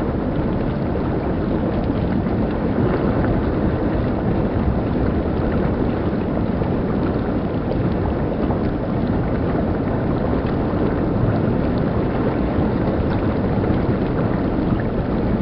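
Water rushing steadily over rocks in a shallow river rapid, with small splashes.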